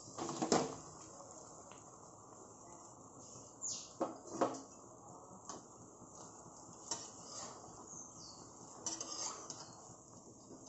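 Metal utensils clattering against a metal kadhai as boiled noodles are tipped in from a colander and mixed into stir-fried vegetables: a sharp clank about half a second in, then scattered spatula knocks and scrapes on the pan.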